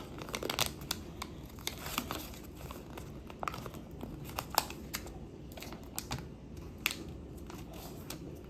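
A sheet of paper being folded by hand: crinkling and rustling, with many short sharp creases and taps as the folds are pressed down.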